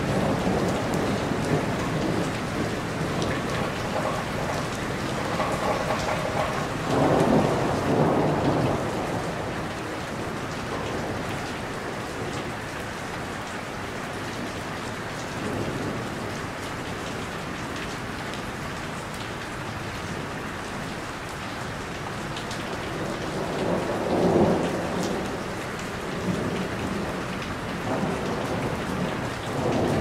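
Steady heavy rain falling on a roof, a continuous hiss and patter that swells louder for a couple of seconds about seven seconds in and again about twenty-four seconds in.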